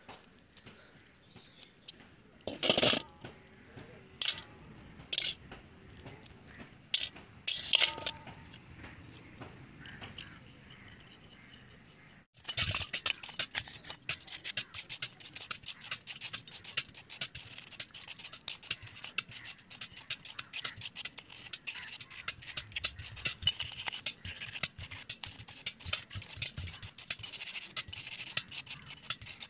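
Stiff plastic brush scrubbing a wet LML Vespa carburettor body in fast, repeated scratchy strokes. In the first part, before the scrubbing starts about twelve seconds in, there are a few separate clicks and knocks of metal carburettor parts being handled.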